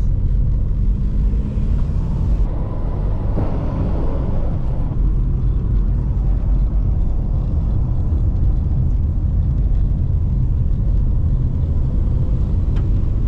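Car driving over a rough, broken road surface, with the engine and tyres making a steady low rumble.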